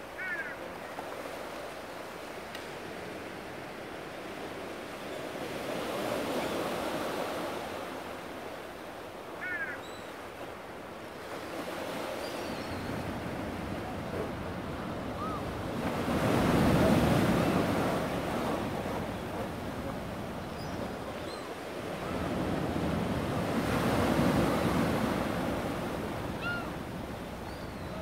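Sea waves washing and breaking over a low rock, surging and ebbing in slow swells, the loudest about two-thirds of the way through. A few faint, short gull calls sound over the surf.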